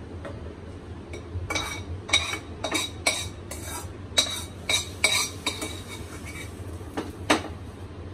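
A metal utensil clinking and scraping against stainless-steel cookware as roasted dry coconut is tipped into a steel mixer jar. About ten irregular clinks with a ringing tone, the loudest near the end.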